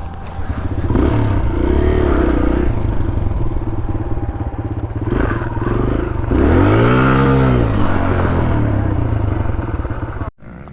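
Dirt bike engine running under way, its pitch climbing and then dropping back over a second or so about six and a half seconds in. The sound cuts off abruptly near the end.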